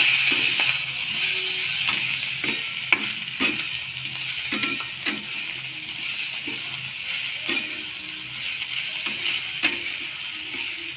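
Potato pieces frying in oil in a steel kadhai, with a steady sizzle, while a spoon stirs them and repeatedly scrapes and taps against the pan.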